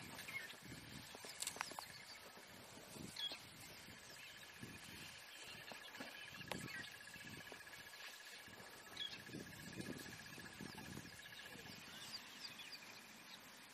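Quiet bush ambience: a long, even, high trill runs from about four seconds in until near the end, with a few short bird chirps and soft low rustles.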